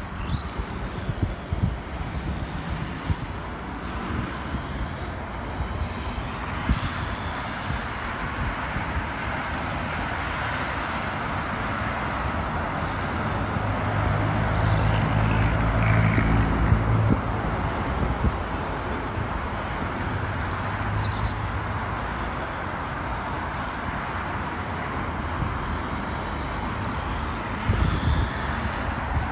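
Turnigy 1/18 stadium truck's small electric motor whining in short rising and falling sweeps as it speeds up and slows down, over a steady outdoor rumble. A louder low drone swells for a few seconds around the middle.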